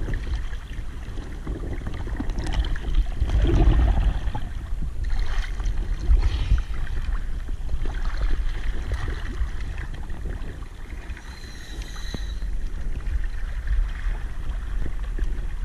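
Sea water sloshing and splashing against a boat's hull at the waterline, with irregular gurgles and a low rumble as the water surges and falls back.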